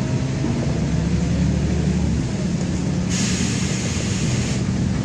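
LiAZ-5292.21 city bus under way, heard from inside: the diesel engine's steady hum with road noise. About three seconds in, a burst of hissing lasts about a second and a half.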